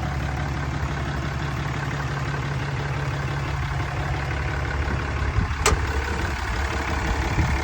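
Ram 3500's 6.7-litre Cummins turbo-diesel idling steadily, with one sharp click a little after halfway through.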